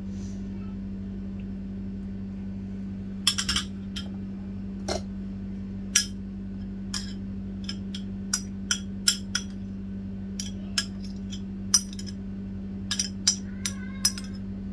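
Metal spoon clinking and tapping against a ceramic dish while chicken filling is spooned out, a couple of dozen irregular sharp clinks, over a steady low hum.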